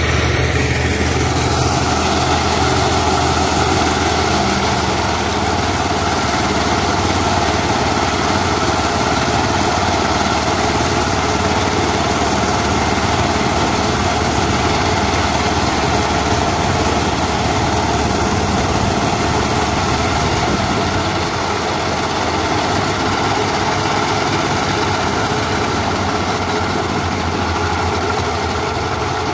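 Two-wheel power tiller's single-cylinder diesel engine running steadily as it pulls a trailer along a road.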